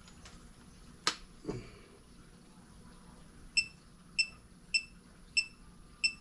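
A single sharp click about a second in, then five short high-pitched beeps, evenly spaced about 0.6 seconds apart.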